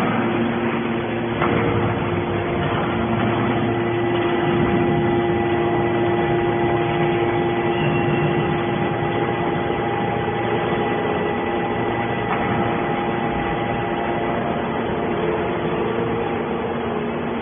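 Hydraulic metal baler running: a steady machine hum with a constant whine from its hydraulic power unit, and a couple of faint clicks.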